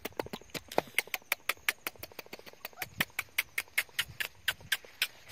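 A person's rapid, even tongue clicks, about six a second, calling a puppy in.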